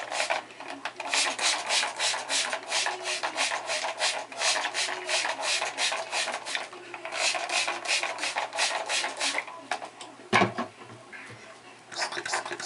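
Hair being rubbed in quick, rhythmic strokes, about three a second, with a single knock about ten seconds in.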